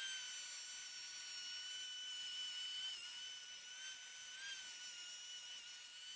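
Compact router with a down-cutting pattern bit running at high speed while routing plywood against a template: a steady high-pitched whine whose pitch dips briefly twice.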